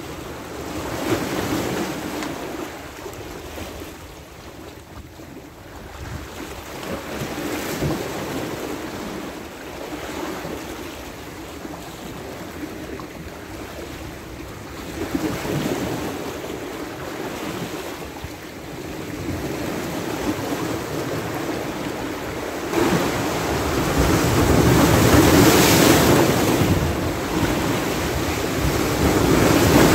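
Sea waves washing and breaking against shore rocks, coming in surges every few seconds and heaviest in the last several seconds, with wind buffeting the microphone.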